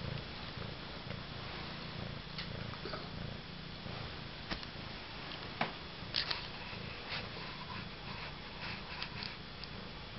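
Domestic cat purring steadily, with a few short sharp clicks.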